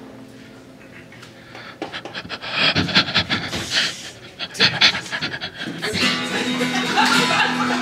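A man panting in short, heavy breaths right into a stage microphone, starting about two seconds in. An acoustic guitar chord is strummed and left ringing for the last couple of seconds.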